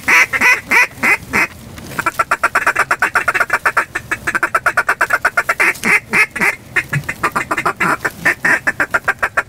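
Mouth-blown duck call sounding a fast run of quacks, about eight to ten a second, with a short break about a second and a half in: calling to draw circling ducks toward the decoys.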